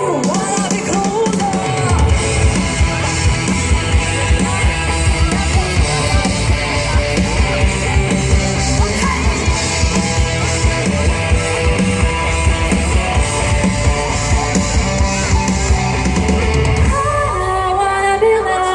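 Live rock song: a singer on a microphone with electric guitar over a heavy, steady beat through a sound system. Near the end the beat and bass drop out, leaving the voice and higher instruments.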